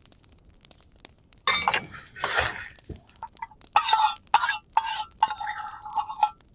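Metal utensil scraping and clinking against a camping cooking pot: two scrapes, then a quick run of sharp clinks, one of which rings briefly near the end.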